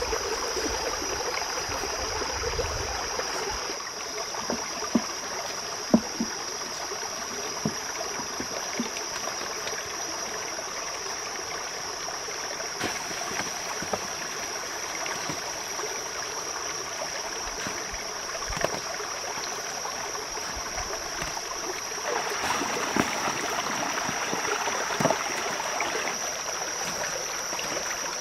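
Shallow forest stream running over rocks, a steady rush of water, with a steady high-pitched tone above it and occasional light knocks, the sharpest about six seconds in.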